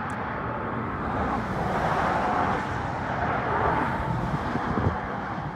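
Road traffic: a car going by, its tyre and engine noise swelling and fading.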